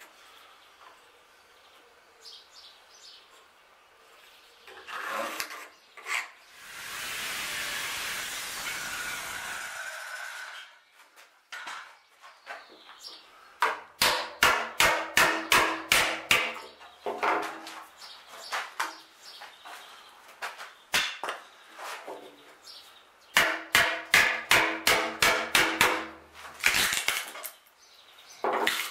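Hammer driving a chisel into a wooden keel timber in two quick runs of sharp blows, about five a second, near the middle and again near the end. Before them a steady hiss lasts about four seconds.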